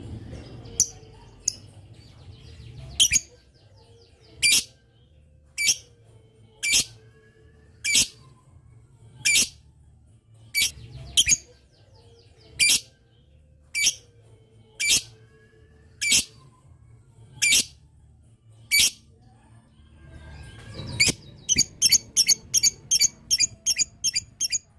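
Lovebird calling: sharp, shrill single chirps about every second and a quarter, then near the end a fast run of short chirps, about four a second, the rapid 'ngetik' (typing) chatter that keepers use to set other lovebirds off calling.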